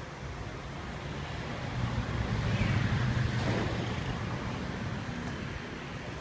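A passing road vehicle: a low rumble swells from about two seconds in, peaks around the middle and fades away, over a steady background hum.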